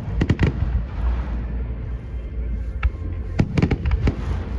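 Fireworks shells bursting overhead: a quick cluster of sharp bangs at the start and another cluster about three and a half seconds in, over a steady low rumble.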